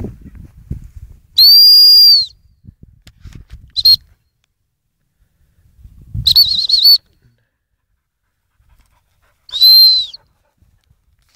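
Four loud, high-pitched whistle blasts: whistle commands to a dog. The first, about a second and a half in, is a long steady note, then comes a short pip, then a warbling note about six seconds in, and near the end a note that rises and falls.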